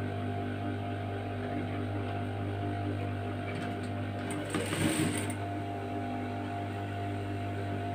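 Sewing machine with a steady electric hum, and a short run of stitching, about a second long, roughly four and a half seconds in.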